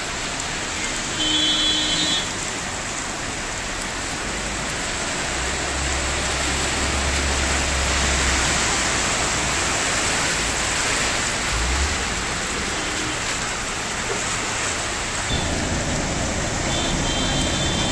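Steady hiss of heavy rain and water rushing across a flooded street as vehicles drive through it, with a low engine rumble from about six to ten seconds in. A short beep sounds about a second in and again near the end.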